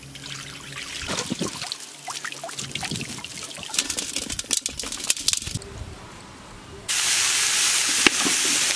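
Water splashing and sloshing with many small splashes, then a sudden steady loud hiss of water from about seven seconds in.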